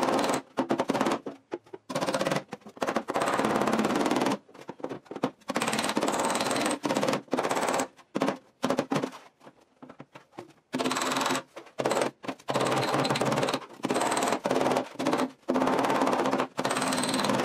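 Small body hammer tapping rapidly on a car's sheet-metal front fender to work out a dent. The taps come in quick runs with short pauses, quieting for a few seconds in the middle.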